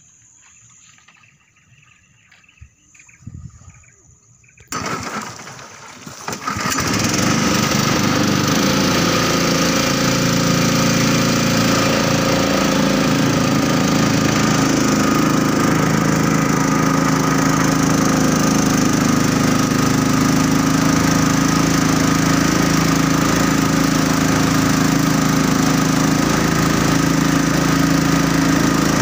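Small boat engine starting up with a couple of short bursts about three to six seconds in, then running steadily at an even speed.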